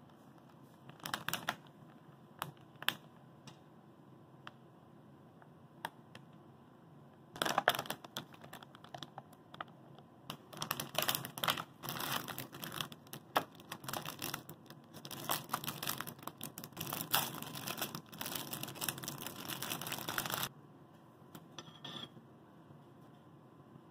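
Thin clear plastic wrapping of individually packed dorayaki crinkling as it is handled and torn open: a few brief crinkles near the start, then a long stretch of dense crinkling that stops a few seconds before the end.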